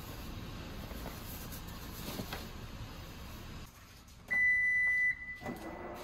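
A single steady, high electronic beep lasting just under a second, about four seconds in, like an appliance's signal tone. Before it there is low rustling with a few light clicks.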